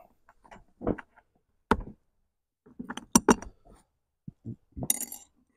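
Scattered light clicks and knocks of small metal mounting hardware (bolts and washers) being handled and fitted into a leather saddlebag's mounting bracket, with a cluster of clicks about three seconds in and a brief scrape near the end.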